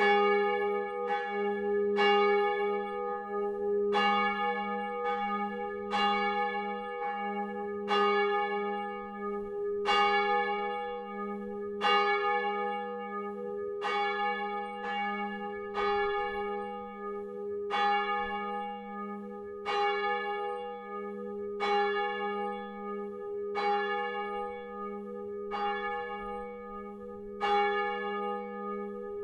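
A single 1948 Petit & Fritsen church bell swinging on its straight yoke, its clapper striking about once a second. Each stroke rings on into the next, so the bell's hum sounds continuously underneath.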